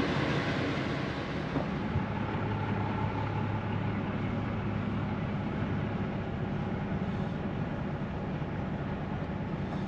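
Motorhome engine running at low speed, a steady low drone.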